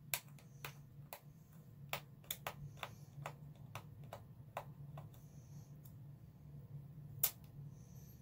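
Irregular sharp plastic clicks and taps, about a dozen, from hands working at a small plastic makeup compact and its packaging; the loudest comes about a second before the end. A steady low hum runs underneath.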